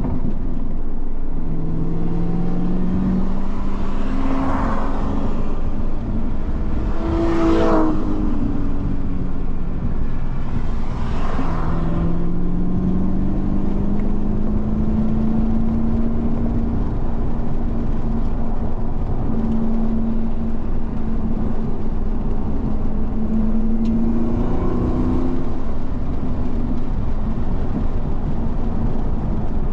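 Race car engine running hard at track speed, its pitch climbing under acceleration, dropping at gear changes or braking a few times, then holding high for a long stretch before falling and rising again near the end.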